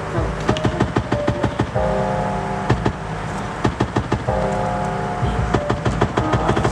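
Music with a steady drum beat, deep bass and sustained chords.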